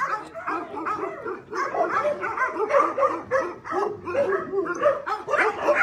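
Many shelter dogs barking and yipping at once, a dense chorus of overlapping barks with no break.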